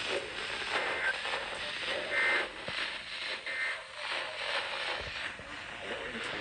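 NOAA weather radio receiver sending the Emergency Alert System end-of-message: three short, shrill digital data bursts about a second and a half apart, over steady radio static. It marks the end of the snow squall warning broadcast.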